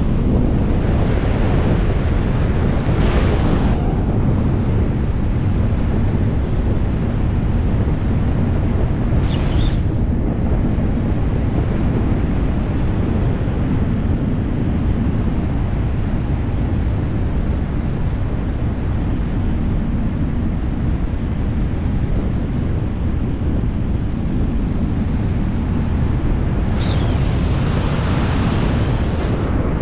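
Loud, steady rush of wind buffeting the camera's microphone during a wingsuit flight at speed. The hissing upper part of the rush swells in the first few seconds and again near the end.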